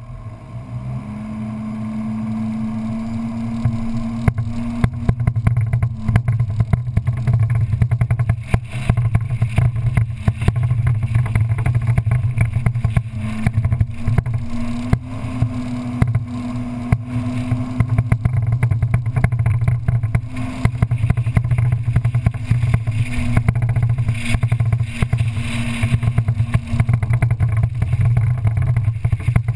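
Engine of an open off-road buggy running under way on a sand track, its pitch rising over the first second or two as it speeds up and then holding steady, with wind buffeting and bumps on the microphone.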